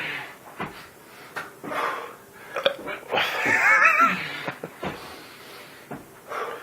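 Short breathy gasps and forced soda burps from a man, with one drawn-out, wavering burp about three seconds in.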